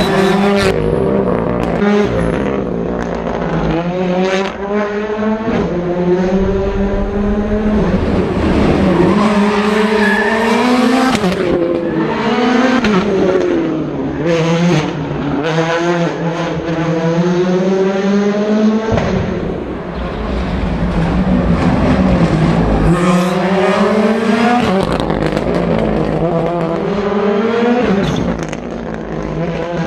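Rally car engine under hard acceleration on a special stage, revving up through the gears. The pitch climbs and drops back at each shift, again and again, and the engine never stops.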